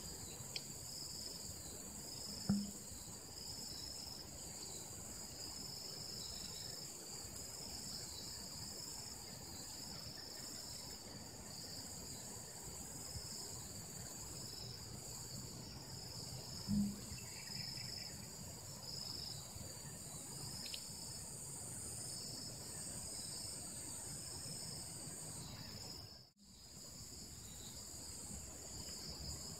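Insects chirping in a steady rhythm of about one high chirp a second over a continuous higher buzz. Two brief thumps are heard, a few seconds in and about halfway through, and the sound cuts out for a moment near the end.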